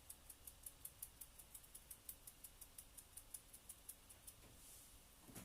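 A finger flicking repeatedly across the bristles of a paint-loaded brush to spatter thinned acrylic paint: a faint, even run of crisp ticks, about seven a second, that stops near the end.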